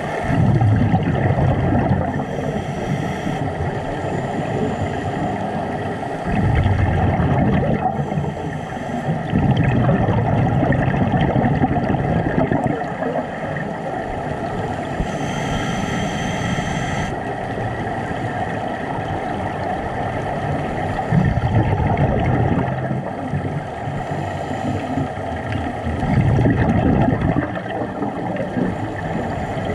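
Scuba divers' exhaled bubbles, heard underwater as low rumbling surges every few seconds over a steady underwater hiss and hum.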